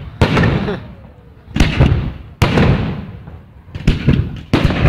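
Aerial fireworks shells bursting overhead: about half a dozen sharp bangs, roughly a second apart, with a quick cluster of them near the end. Each bang trails off in an echo.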